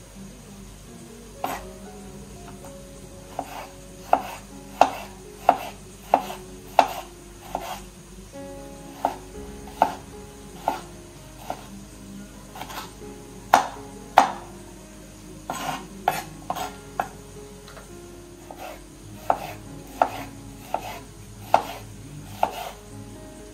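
Kitchen knife dicing tomatoes on a wooden cutting board: sharp, irregular knocks of the blade striking the board, roughly one or two a second, with short pauses between runs of cuts.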